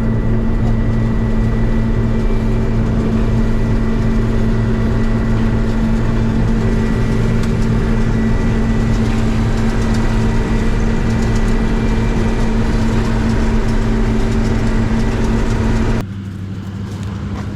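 Steady drone of a John Deere 6620 combine running while harvesting corn, its diesel engine and threshing machinery humming together with a thin steady whine. Near the end it cuts abruptly to a quieter, lower hum.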